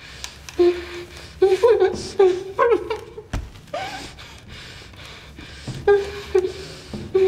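A person's short, high-pitched, muffled vocal sounds in several bursts: one early, a cluster about two seconds in, and more near the end.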